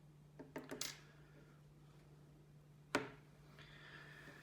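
Light clicks and taps, then one sharp click about three seconds in and a faint scrape near the end: small metal drive-mounting rails and screws being handled as a laptop hard disk is swapped for a 2.5-inch SSD. A steady low hum runs underneath.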